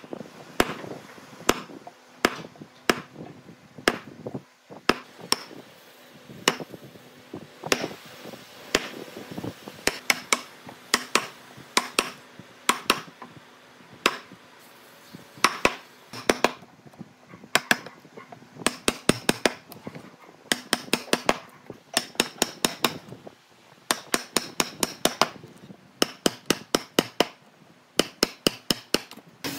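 Hammering on wood: sharp blows come in irregular runs with short pauses, from single strikes every second or so to quick runs of about four or five taps a second toward the end.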